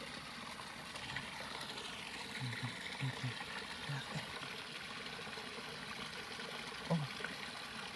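Steady trickling and flowing of water, a shallow stream running.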